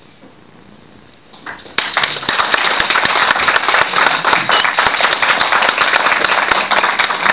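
A brief hush, then audience applause breaking out about a second and a half in and continuing as a dense, steady clatter of many hands.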